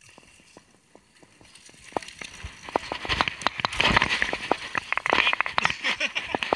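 Mountain bike rattling and clattering as it rides fast down a rough dirt trail, with tyre noise over the ground. It starts as sparse ticks, and about two seconds in it builds into a dense, loud clatter.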